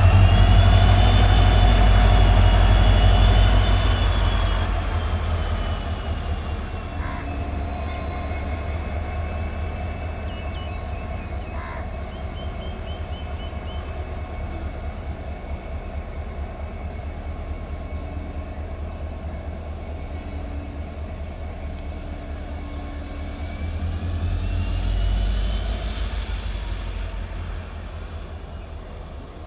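WDG4 (EMD GT46MAC) diesel locomotive on the move: a low diesel engine rumble under a high whine that rises and falls in pitch. It is loudest at the start, fades, then swells again about 24 seconds in.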